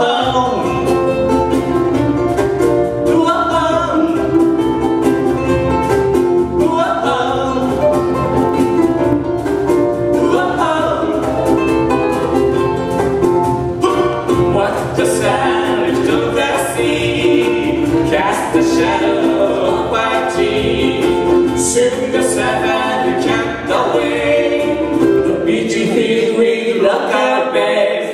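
Live acoustic band playing a Hawaiian-style song on ukuleles, acoustic guitar, cajon and keyboard.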